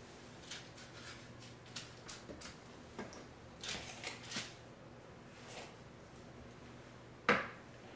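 Faint rustling and scraping of soft oat biscuit dough being scooped from a mixing bowl with a spoon and rolled into balls by hand, with a short sharper noise near the end, over a faint steady low hum.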